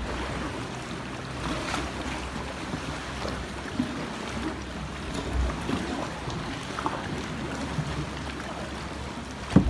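Sea water lapping and sloshing around kayaks among rocks, with wind rumbling on the microphone and a sharp knock near the end.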